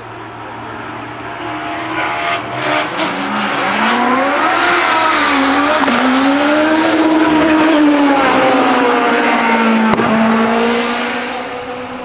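Single-seater racing car's engine revving hard under acceleration, its pitch climbing and dropping back several times with gear changes. It grows steadily louder to a peak, then fades near the end as the car draws away.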